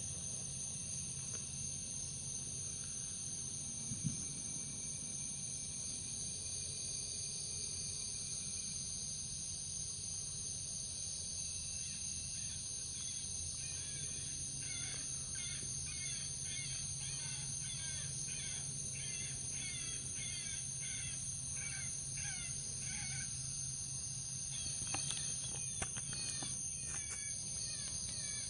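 Electronic predator call playing a distress sound: a run of short, repeated cries, about two to three a second, starting about twelve seconds in and stopping about twelve seconds later. A steady high insect drone runs underneath, and a few sharp clicks come near the end.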